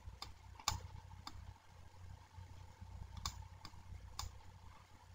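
Faint, scattered sharp clicks, about six in five seconds, from the computer pointing device used to hand-write an equation on screen, over a faint low hum.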